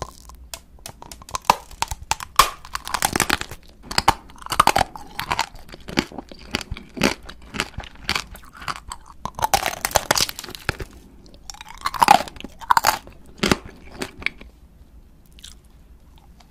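Close-miked biting and crunching of a hard, sprinkle-coated candy lollipop: sharp cracks and crunches come in irregular bursts of chewing, then thin out near the end.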